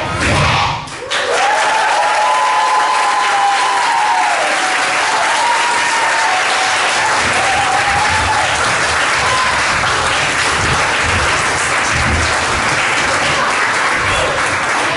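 A large audience applauding steadily, with a few held cheers or whoops rising and falling over the clapping in the first several seconds.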